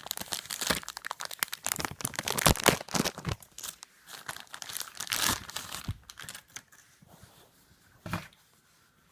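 Packaging crinkling and tearing as it is opened by hand to take out a replacement TV remote control: dense crackling for about six seconds, thinning out, with one last sharp crackle near the end.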